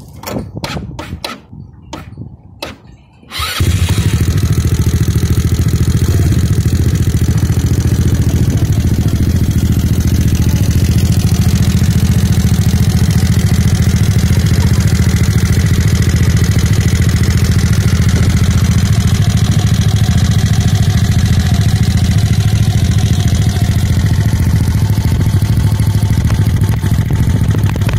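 Icebear Mad Dog mini bike's single-cylinder engine, big-bored to 171cc, being cranked in a few short bursts and catching about three and a half seconds in, then idling steadily: its first start after the big bore kit.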